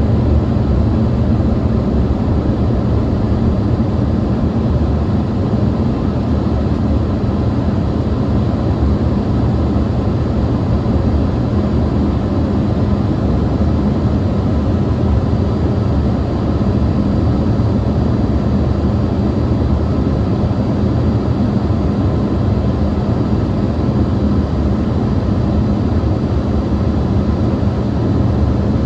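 Steady cabin noise inside an Embraer ERJ145 regional jet on descent: the rush of air over the fuselage and the drone of its rear-mounted turbofan engines, with a low hum that holds unchanged throughout.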